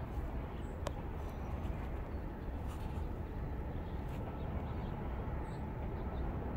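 Steady low outdoor rumble beside the tracks, with a few faint high chirps and ticks.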